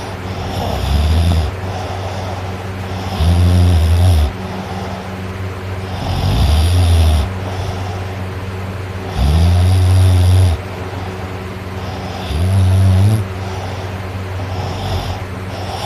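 A person snoring: five snores about three seconds apart, each a low rumble lasting about a second.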